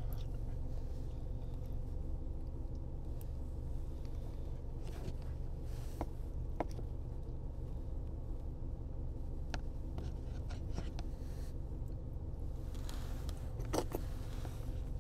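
Steady low hum inside a car cabin, with a few light clicks and scrapes of a plastic spoon against a paper soup cup as someone eats; the sharpest click comes near the end.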